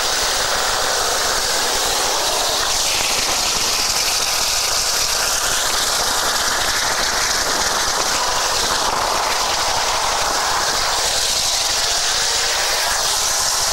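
RAF Sea King search-and-rescue helicopter's rotors and turbine engines from directly beneath and at the cabin door during a winch lift: a loud, steady noise, with rotor downwash blowing across the microphone.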